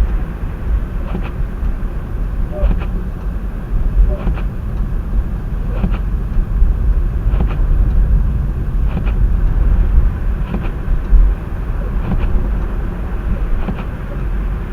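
A car on the move: steady low engine and road rumble, with a faint tick about every second and a half.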